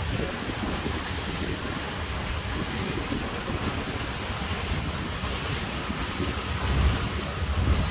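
Wind buffeting the microphone over a steady rush of river water around a moving pontoon ferry, gusting harder near the end.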